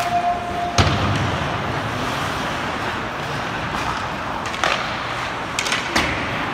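Ice hockey play heard from the stands: a steady hum of arena and crowd noise, broken by sharp cracks of puck and sticks against the boards. The loudest crack comes about a second in, with a few smaller knocks near the end.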